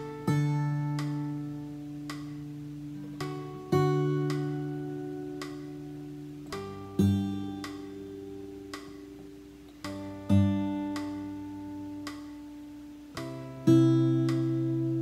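Acoustic guitar played fingerstyle: a chord plucked every three and a half seconds or so, each left to ring and fade, with a soft note just before each one. These are the chords on the first beat of each measure of the melody, played slowly.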